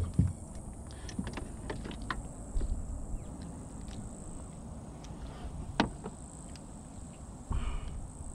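Light clicks and taps of metal fish-lip grips and long-nosed pliers as a hook is worked out of a small bream's mouth, with one sharper knock about six seconds in, over a steady low rumble.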